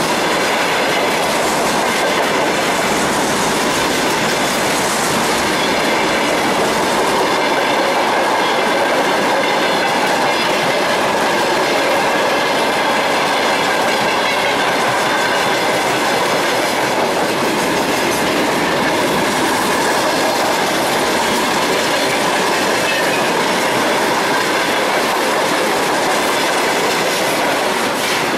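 Freight train wagons rolling past close by: a steady, loud rumble of steel wheels on the rails.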